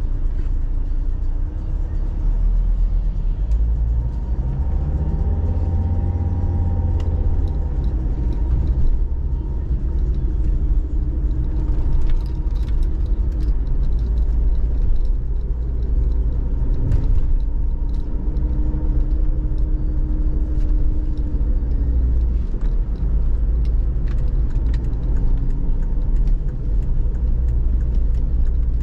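Car driving: steady low rumble of the engine and tyres, the engine note slowly rising and falling, with scattered light clicks and knocks.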